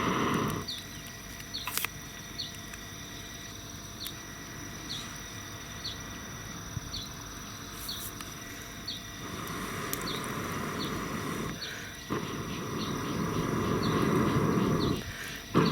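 An insect's steady high buzz with a short chirp repeating a little more than once a second, over a rushing noise that swells at the start, fades, and comes back louder about nine seconds in.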